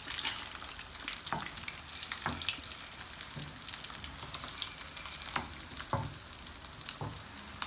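Chapli kabab shallow-frying in oil in a nonstick pan on a low flame, sizzling steadily. A spatula taps and scrapes against the pan several times.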